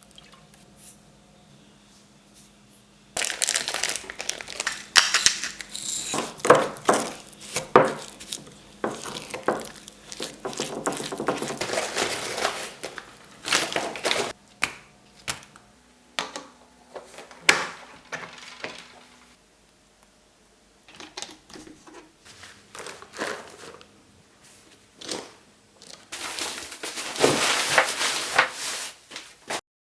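Plastic packaging crinkling and rustling as it is handled, with sharp clicks and taps. It comes in two stretches: a long one starting about three seconds in and a short one near the end, with only scattered taps between them.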